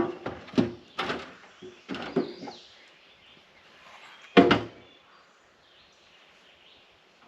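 Wooden knocks and clunks from lumber being handled and set against the roof framing: several sharp knocks in the first two seconds and one loud clatter past the middle.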